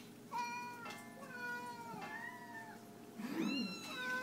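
Domestic cats meowing for their food, about four drawn-out meows in a row, each bending in pitch.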